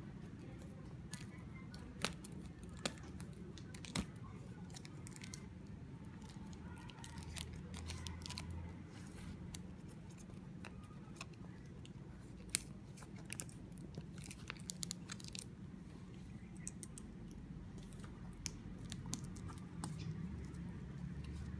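Hands handling a shrink-wrapped cardboard box, giving scattered small clicks and plastic crinkles, then scissors snipping through the plastic shrink-wrap near the end.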